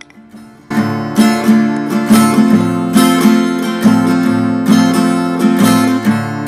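Background music of a strummed acoustic guitar playing chords, starting abruptly about a second in.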